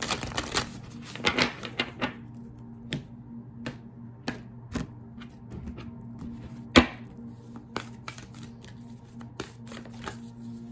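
A deck of oracle cards being shuffled by hand: a quick dense riffle of cards in the first two seconds, then a run of light card clicks and taps, with one louder sharp click a little past the middle.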